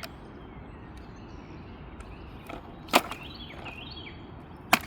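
Two sharp hard knocks, about three seconds in and again near the end, from the stick vacuum's jammed power switch being forced and knocked at. Between them a bird calls in quick rising chirps.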